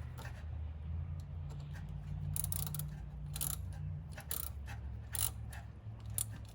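Irregular light metallic clicks and scrapes as a battery shim is worked into a car battery's negative terminal clamp, over a steady low hum.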